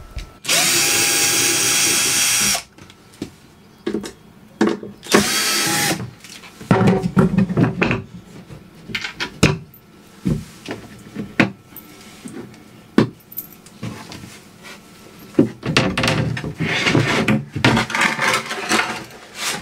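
Cordless drill-driver backing out floorboard screws in two runs, one of about two seconds and a shorter one about five seconds in. After that come scattered knocks and clatter as the wooden floorboard is worked loose and lifted.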